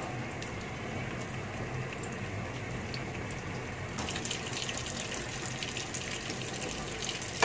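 Sliced onions, garlic and tomato sizzling in hot oil in a wok: a steady frying hiss, with sharper crackles from about four seconds in.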